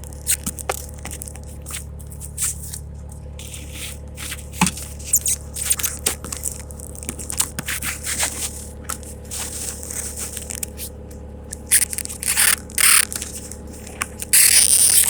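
A low engine running steadily, with scraping, clicks and knocks over it, and loud bursts of hiss near the end.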